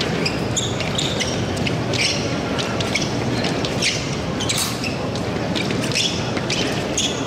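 Fencers' shoes on the piste: an irregular series of quick taps and squeaks, about two a second, over the steady noise of a large hall.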